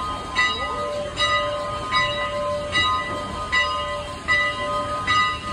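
Steam locomotive's bell ringing steadily, struck about every 0.8 seconds with a ringing tone between strikes, over the low rumble of the locomotive moving slowly in.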